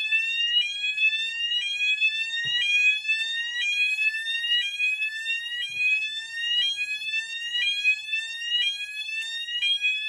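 Fire alarm sounder beacon base sounding in alarm, a rising sweep tone that repeats about once a second, set off by pressing a manual call point.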